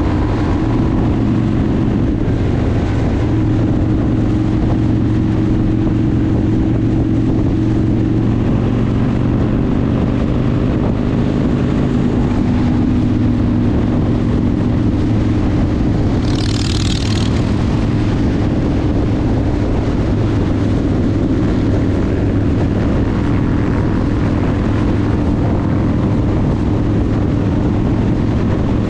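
Harley-Davidson V-twin motorcycle engine running steadily at highway cruising speed, heard from on the bike under heavy wind and road noise. A short burst of hiss just past the middle.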